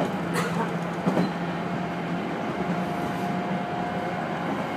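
A 211 series electric train running along the track, heard from inside the driver's cab: a steady running noise with a low hum. Two sharp clicks come within the first second and a half, typical of wheels over rail joints. A faint steady whine joins about halfway in.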